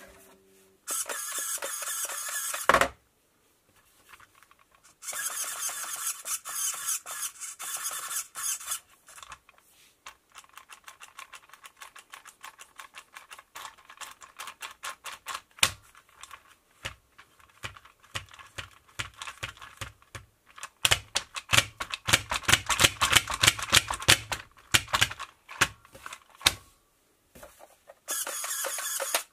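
Plastic steering linkage of a Tamiya DT-01 buggy chassis clicking and rattling in quick runs as the steering is worked back and forth, a sign of play in the steering. It is loudest about two thirds of the way in, and there are three short spells of a steady whir, two in the first third and one at the end.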